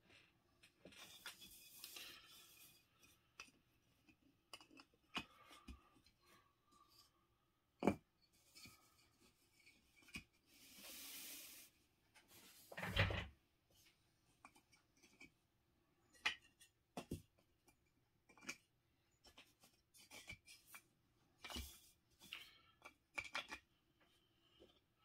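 3D-printed plastic terrain tiles being handled and fitted together: scattered light clicks and knocks as pieces meet, with a couple of louder knocks, and short stretches of rubbing as tiles slide over the felt mat.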